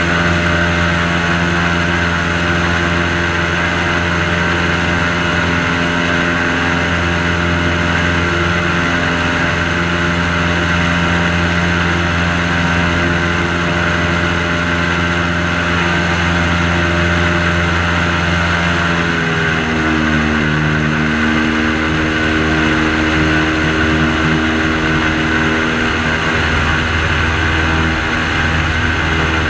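Airboat engine and propeller running steadily at cruising speed. About two-thirds of the way through, the engine note drops slightly as the throttle eases, then holds steady.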